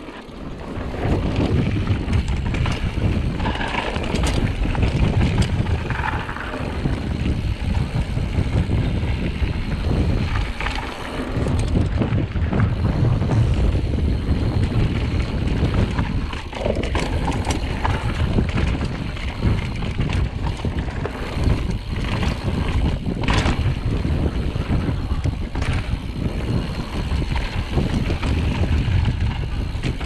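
Wind buffeting the microphone on a mountain bike descending fast, over the rolling rumble of tyres on a dirt and gravel trail, with scattered clicks and rattles from the bike over rough ground.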